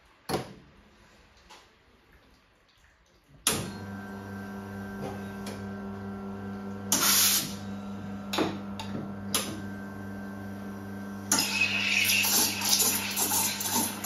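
Expobar Carat espresso machine: a cup clacks down, then about three and a half seconds in the pump starts a steady hum as the shot is pulled. A short loud hiss comes about seven seconds in, and from about eleven seconds the steam wand hisses and sputters into a jug of milk as it is steamed, over the pump's hum.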